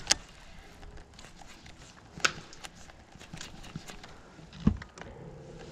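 Sparse knocks and clicks in a fishing boat: a sharp click just after the start, another about two seconds in, and a heavier low thump about four and a half seconds in, with faint ticks between.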